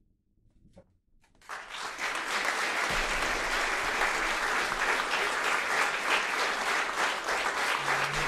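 After a second or so of near silence as the last guitar note dies away, audience applause starts about a second and a half in and continues steadily.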